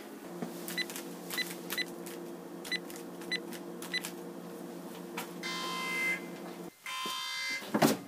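Calculator keypad being pressed: about six short electronic key beeps with button clicks in the first four seconds, over a steady low hum that cuts off near seven seconds. From about five seconds in, a louder buzzing electronic tone sounds twice.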